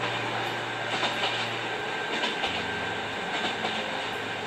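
Train running on rails, a steady rumble with recurring clatter. Under it a low steady hum drops in pitch about halfway through.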